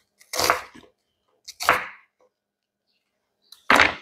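Kitchen knife chopping through onion onto a cutting board: three separate sharp chops.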